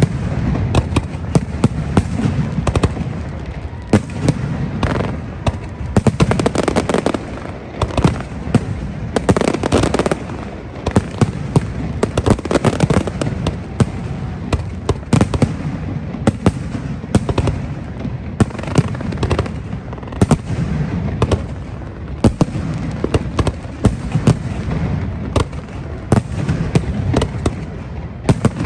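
Fireworks display going off close by: a dense, unbroken barrage of sharp bangs from bursting aerial shells, with crackling between them and a steady low rumble underneath.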